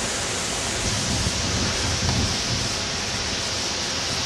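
Strong wind from a thunderstorm's gust front rushing steadily, with a few louder gusts hitting the microphone between about one and two and a half seconds in.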